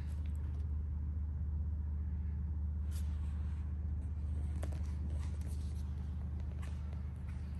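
Steady low hum with a few faint clicks and taps over it.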